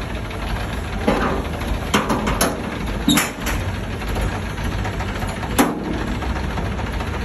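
An engine idling steadily in the background, with several short knocks and rattles as a wrapped generator set is handled and strapped during unloading.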